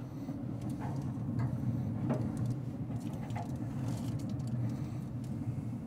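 Z Grills pellet grill running with a steady low hum, its fan going while it heats. A few soft knocks and clicks sound as rib racks are laid on the metal grates.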